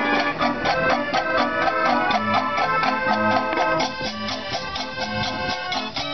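Dutch street organ (draaiorgel) playing a dance medley from its music book: held organ-pipe melody and chords over a steady beat from its built-in percussion.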